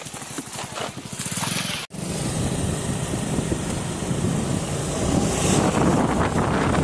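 Scooter engine running at a standstill with an even pulse, then, after a cut about two seconds in, the scooter riding along a road, engine and wind noise on the microphone, growing louder near the end.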